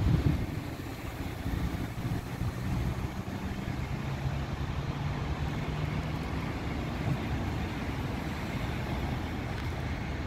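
Motor vehicle engine idling: a steady low hum that fades after about six seconds, over constant outdoor background noise.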